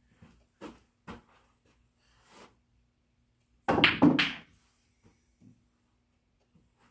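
Pool balls on a pool table: two sharp clicks of cue and balls striking, then a louder double thunk about four seconds in.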